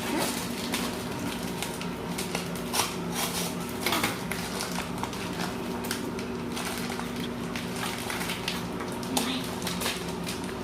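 Plastic candy and sprinkle packets being handled, rustling and clicking at irregular moments, over a steady low hum.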